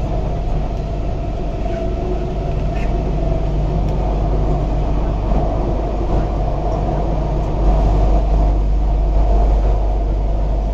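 MTR Q-Train metro car running on the Kwun Tong Line, heard from inside the carriage: a steady rumble of wheels and running gear, growing louder about eight seconds in.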